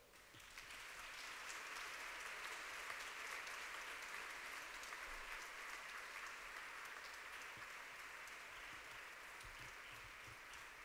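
Audience applauding, building up about half a second in and easing off slightly near the end.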